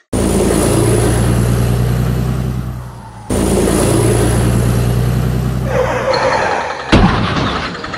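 Vehicle engine sound effect running with a high whine rising over it, the same clip starting abruptly twice in a row, then a single sharp bang about seven seconds in.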